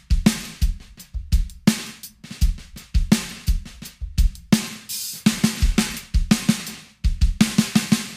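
Drum-kit groove on bass drum and cymbals with a Sonor AQ2 14x6 maple snare that has old drum tension rods laid across its batter head, so each snare hit carries a metallic sizzle.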